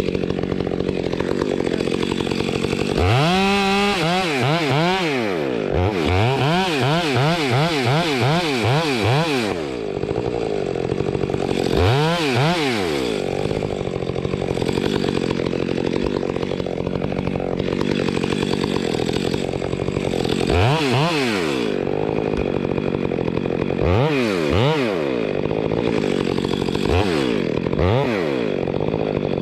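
Two-stroke chainsaw idling, its throttle opened again and again so the engine note rises and falls. There is a long run of quick revs from about three to ten seconds in, then single revs spaced through the rest.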